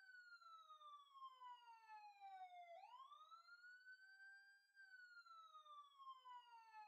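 Faint emergency-vehicle siren wailing: one tone slides slowly down, swoops back up about three seconds in, then slides down again before cutting off abruptly at the end.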